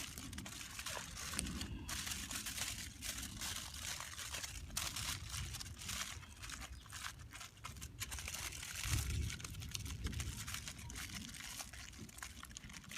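Aluminium foil crinkling and crunching as it is folded and pressed around fish, a steady run of small crackles.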